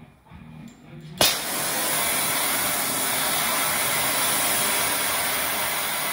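Oxy-acetylene torch being lit: a sharp pop of ignition about a second in, then the steady loud hiss of the burning flame.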